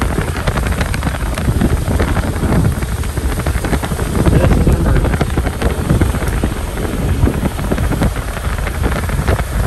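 Strong storm wind buffeting the microphone, loud and gusty, with a heavy low rumble that rises and falls.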